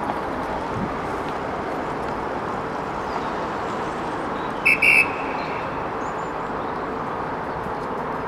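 Steady rushing outdoor noise across a sports pitch, with two short, high whistle blasts in quick succession about halfway through, typical of a referee's whistle.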